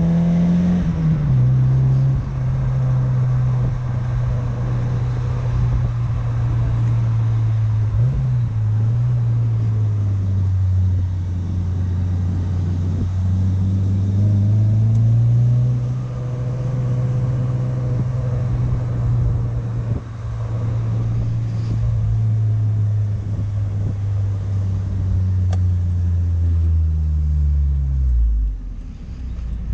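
1993 Mazda MX-5 Miata NA's 1.6-litre four-cylinder engine through an aftermarket Cobalt exhaust, the car under way. The engine note drops about a second in, climbs again around the middle, holds steady, then falls away near the end as the revs come down.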